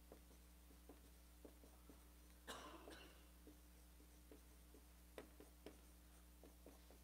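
Faint marker strokes and taps on a whiteboard, with one longer scratchy stroke about two and a half seconds in, over a steady low hum.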